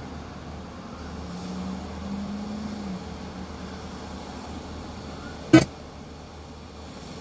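Road traffic noise on a multi-lane street, with a low steady tone for about two seconds starting about a second in. A single sharp knock about five and a half seconds in.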